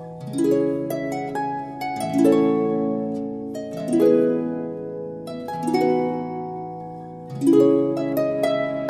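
Background instrumental music of plucked-string notes, sounding like a harp, with a new chord or group of notes about every two seconds, each ringing and fading.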